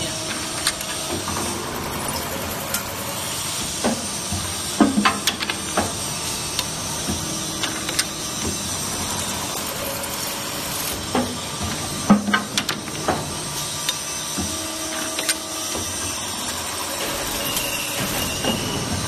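Double-end chamfering machine running: a steady mechanical whir with hiss, broken by clusters of sharp metal clanks about every seven seconds.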